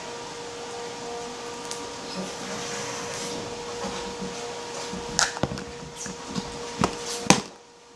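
A steady background hum with a single steady tone, and four sharp clicks or knocks in the second half, two close together and then two more.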